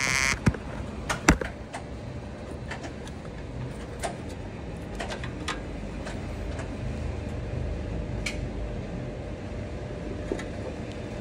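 Handling noise as jumper wires are fitted to a truck's DEF dosing-valve connector: a short rustle, then a few sharp clicks and knocks in the first second and a half, then scattered faint clicks over a low steady rumble.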